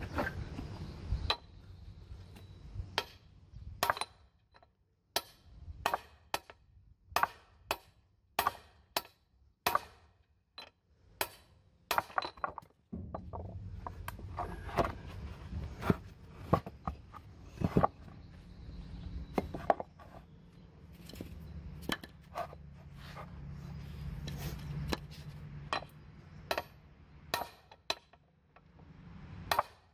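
Hammer blows on a large socket set over a heavy-truck driveshaft yoke, driving a universal-joint bearing cup out. Repeated sharp metallic strikes, one to two a second, with a low steady rumble underneath through the middle.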